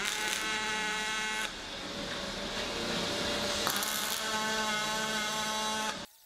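Steady machine noise from workshop tool work, with an even-pitched tone in it. It dips briefly about a second and a half in and cuts off abruptly about six seconds in.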